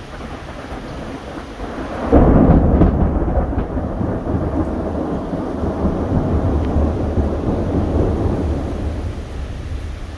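A thunderclap breaks about two seconds in and rumbles on for several seconds, fading near the end, over steady rain.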